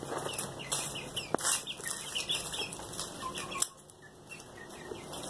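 Eight-week-old Black Australorp chicks cheeping and clucking as they feed: a busy run of short, high, falling peeps that thins out about two-thirds of the way through, leaving a few lower calls. A single sharp tap sounds about a second in.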